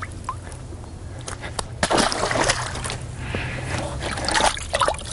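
Water splashing and sloshing in irregular bursts as live bream are handled and let go into the river, with hands rummaging in the bucket for the next fish near the end.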